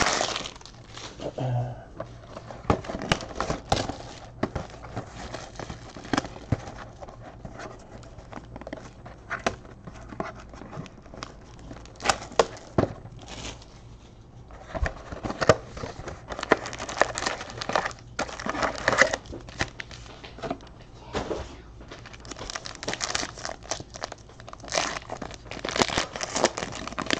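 Trading-card packaging being handled and opened: a foil card pack wrapper crinkling and tearing, in uneven bursts of crackling that come thickest in the second half.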